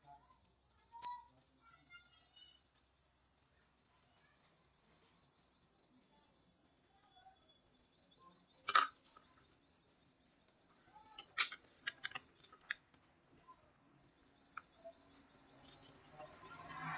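Faint, rapid high-pitched chirping of birds in the background, coming in runs, with a few sharp clicks from handling small parts, the loudest about nine seconds in.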